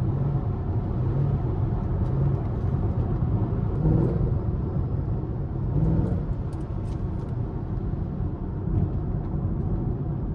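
Fifth-generation Camaro SS's V8 running under way through its stock exhaust, with a steady low drone and road noise. The engine note swells briefly twice, about four and six seconds in.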